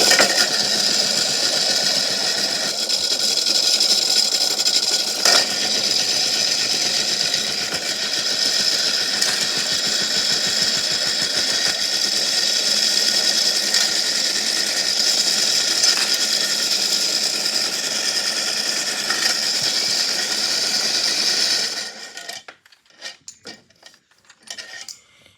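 Small electric motor of a toy washing machine running steadily with a high whine, rocks and shells rattling inside it. It cuts off suddenly about 22 seconds in.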